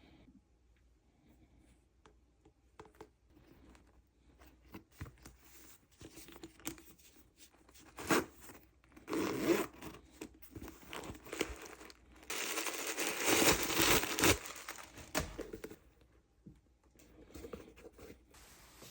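Packaging being handled and pulled open: scattered rustles and small clicks, louder bursts of crinkling a little before halfway, then a longer, louder stretch of tearing and crumpling a little past halfway.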